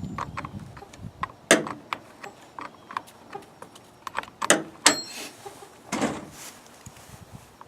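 Irregular metallic clicks, clinks and taps from hands and tools working on a chainsaw's bar, chain and bar nuts during fitting and tensioning, with a short scraping rub about five to six seconds in.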